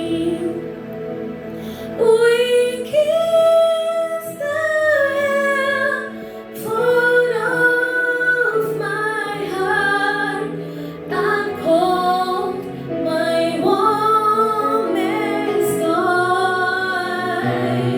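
A woman singing a slow hymn melody over steady instrumental accompaniment.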